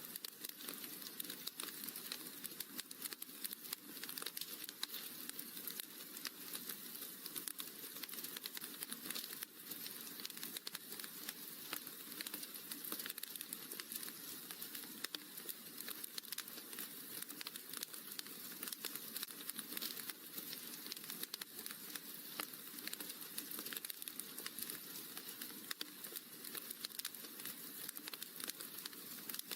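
Wood fire crackling in a fireplace: a steady, dense run of small pops and snaps.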